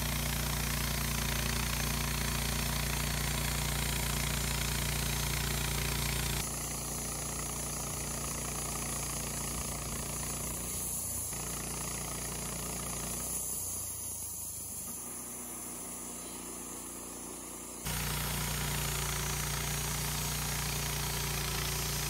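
Wood-Mizer LT15 bandsaw mill running steadily, its band blade cutting through a log. The sound shifts abruptly about six seconds in and again near the end.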